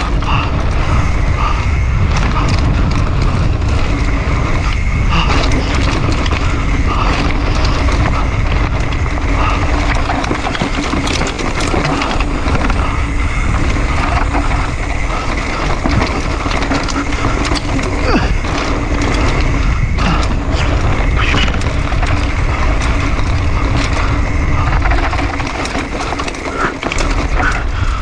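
Mountain bike descending a dirt trail at speed: tyres rolling over dirt and dry leaves, with the bike rattling and clattering over bumps and wind buffeting the camera microphone.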